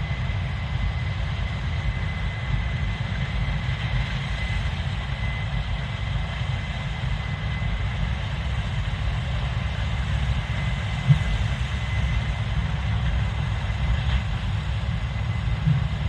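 Case IH 7230 Axial-Flow combine running steadily while harvesting soybeans: a low, even rumble with a thin high whine over it and an occasional thump.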